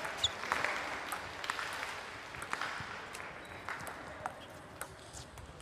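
Table tennis ball clicking off the bats and the table at irregular intervals, about one every half second to a second, over a hiss of hall noise that fades during the first few seconds.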